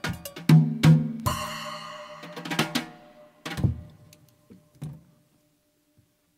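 Acoustic drum kit closing out a solo: a quick run of drum strokes, a cymbal crash about a second in that rings and fades, a few last scattered drum hits, then it stops about five seconds in.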